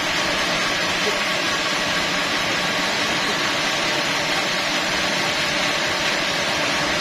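Sawmill machinery running steadily: a constant loud hiss with a faint hum underneath, unchanging throughout.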